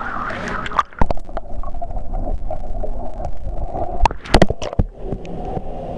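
Pool water splashing, then muffled underwater gurgling and rumbling as the microphone goes below the surface, with sharp knocks about a second in and again around four and a half seconds in.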